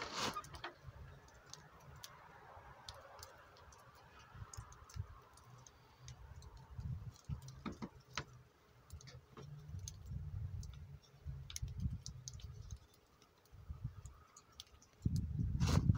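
Faint scattered clicks and handling noise from hands working on a small model airplane glow engine, with patches of low rumble. A louder low rumble rises near the end.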